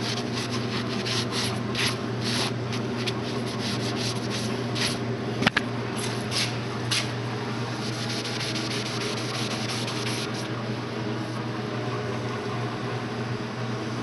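Sponge scrubbing a brass door handle in back-and-forth strokes, about two a second at first and softer in the second half, with one sharp click about five seconds in. A steady low hum runs underneath.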